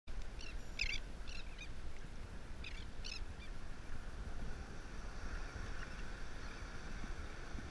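Ocean water sloshing and wind rumbling on a microphone at the water's surface, with two short runs of bird calls in the first three and a half seconds. A hiss of breaking surf comes up about five seconds in.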